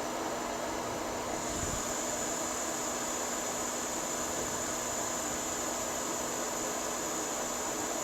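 Steady airy hiss of a hot air rework station blowing on the iPhone 6 Plus logic board while the touch IC is reworked. A higher hiss joins about a second and a half in and holds steady.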